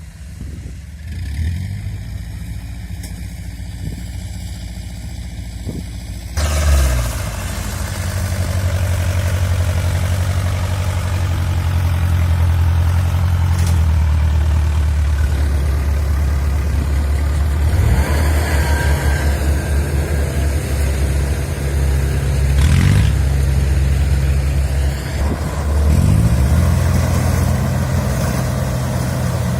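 Kubota DC70 rice combine harvester's diesel engine running steadily. It gets louder, with more mechanical clatter, about six seconds in, and dips briefly in pitch a few times as the load changes.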